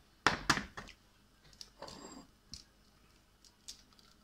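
A raw egg cracked against a bowl: two sharp taps in quick succession, then faint clicks and a brief rustle as the shell is pulled apart.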